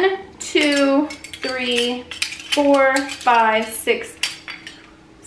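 A bundle of metal kitchen tongs clattering and scraping against each other as they are handled, giving a series of short squeaky, ringing tones with clinks between them.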